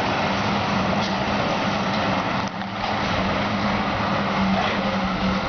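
Heavy diesel engine running steadily with a constant low hum, with a brief dip in level about halfway through.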